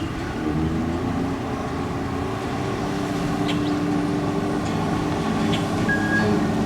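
An engine running steadily, growing gradually louder, with a few short high chirps over it.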